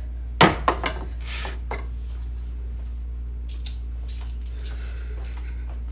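A large skillet set down on a wooden cutting board: one loud clunk about half a second in, then a few lighter knocks and clicks of pan and spatula, over a steady low hum.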